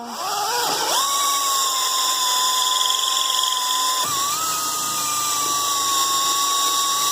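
Power drill turning a 1-inch hole saw into the door frame to cut the deadbolt's bolt hole. It makes a steady whine that spins up in the first second and shifts slightly in pitch about four seconds in.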